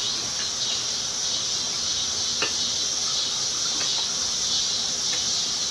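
A steady, unbroken chorus of insects shrilling high-pitched, with a single faint click about halfway through.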